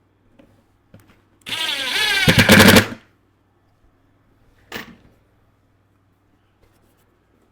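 Cordless impact driver driving a screw: the motor whine rises in pitch for about a second and a half, then breaks into rapid hammering as the screw seats. A brief second pull of the trigger follows about two seconds later.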